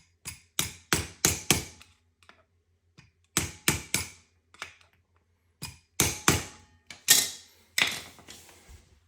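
Light hammer taps on a new fuel injector to seat it into the fuel rail: about fifteen sharp taps in short runs of two or three, with brief pauses between the runs.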